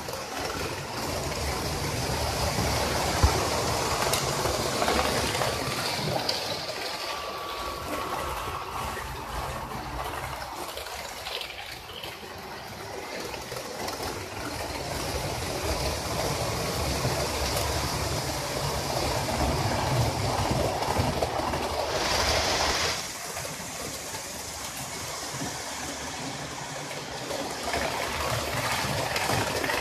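Model railway train running along the track: a steady rumble of the locomotive's motor and the wheels on the rails, with a brief louder hiss a little past two-thirds of the way through.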